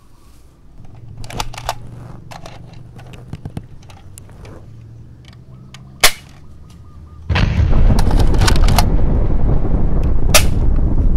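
Explosion sound effect for a thrown toy grenade: a single sharp crack about six seconds in, then a sudden loud blast about a second later that rumbles on, broken by several sharp cracks. Before it, only faint clicks and knocks.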